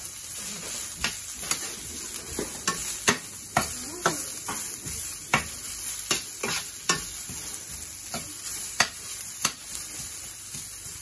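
Sliced onions, garlic and carrots sizzling in a stainless steel skillet as they are stir-fried, with a slotted metal spatula scraping and clicking against the pan about once or twice a second.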